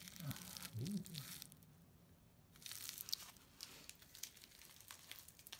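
Clear plastic wrapping crinkling and tearing in short irregular crackles as it is pulled off coins by hand, with a quieter pause around the middle.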